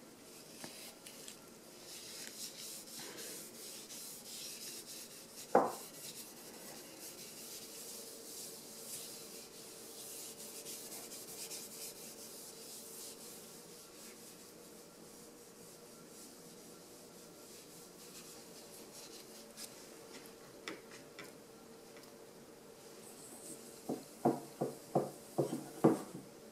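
Paper towel rubbing and wiping inside a stainless steel frying pan, lifting off black residue that ordinary washing leaves behind, with one sharp metallic clank of the pan about five seconds in. Near the end, a quick run of about seven light ringing knocks as hands work around a stainless steel bowl.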